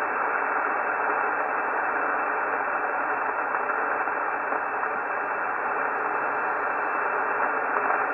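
Steady shortwave band noise, a hiss from a web SDR receiver in upper sideband on the 20 m band, cut off sharply above the sideband filter with no voice coming through.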